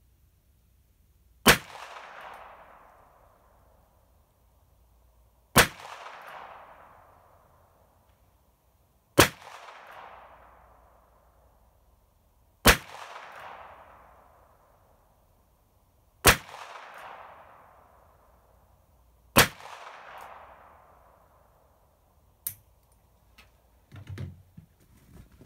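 Six shots from a Ruger Wrangler .22 LR single-action revolver firing CCI Mini Mag rounds, spaced three to four seconds apart. Each sharp crack is followed by a fading echo about a second long. A lighter click comes a few seconds after the last shot.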